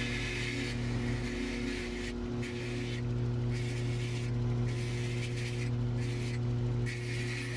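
Belt grinder motor running with a steady hum while a knife blade is ground on a fine 320-grit belt. A high hissing grind comes and goes as the blade is pressed on and lifted off the belt, in passes of about a second.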